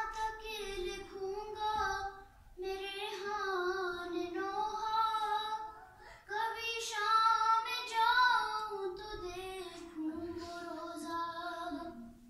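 A female voice chanting an Urdu salam unaccompanied: one melodic vocal line in long phrases, with short breaths about two and six seconds in.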